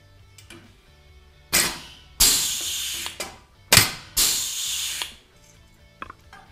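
Power Fist 3/16-inch pneumatic rivet gun setting pop rivets in an aluminium frame bracket, twice. Each time there is a sharp snap as the rivet sets, then about a second of air hissing.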